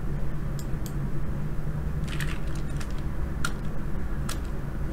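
A few scattered, sharp computer clicks, mouse and keyboard, as a text box is edited on screen, over a steady low hum.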